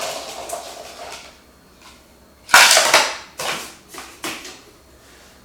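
Gaming-chair gas lift cylinder being fitted into the chair base: one sharp knock about two and a half seconds in, followed by a few lighter knocks as it seats.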